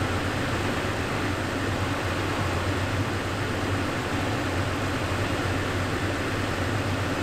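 2020 Toyota Tacoma pickup engine idling, a steady, even low hum.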